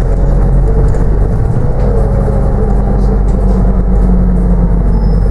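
Cabin noise on the upper deck of a moving New Routemaster double-decker bus: a steady low drone and rumble from the drivetrain and road.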